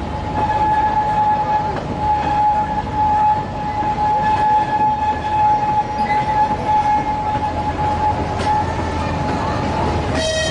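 Small passenger train running, heard from an open carriage: a low rumble of wheels on rail under a steady high-pitched whine that stops about ten seconds in. Just before the end comes a short, brief tone with a different pitch, like a horn toot.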